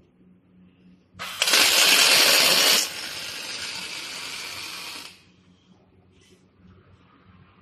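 Automatic scaffolding-crossbar welding machine arc-welding a crossbar end: the arc's hissing noise starts about a second in, loud at first, drops to a lower steady level near three seconds and cuts off around five seconds. A low machine hum runs underneath.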